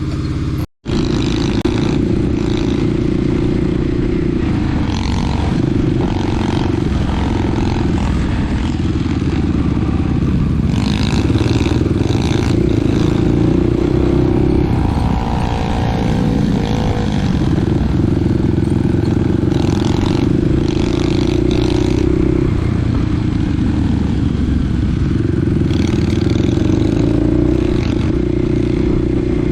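Small dirt bike engine running while riding, its note rising and falling with the throttle, with some rattling and scraping. The sound cuts out briefly just under a second in.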